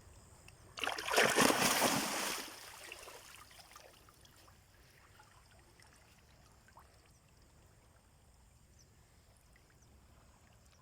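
A loud splash of water about a second in, lasting under two seconds and fading away, followed by faint steady river background.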